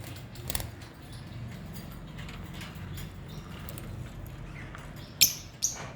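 Small cage birds chirping in short, scattered calls, with two loud sharp calls near the end, over a steady low hum.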